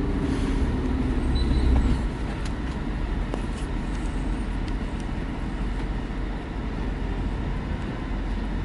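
Steady rumble of a moving car's engine and tyres, heard from inside the cabin.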